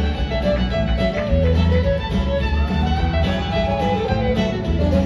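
Live bluegrass band playing an instrumental break, the fiddle taking the lead over the band's steady rhythm.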